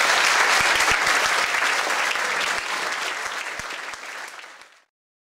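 Audience applauding, a dense even clapping that fades away over the last couple of seconds and cuts off near the end.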